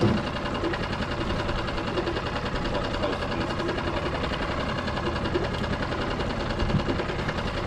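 Small boat's engine running steadily in gear at tick over, a fast, even pulse of firing strokes.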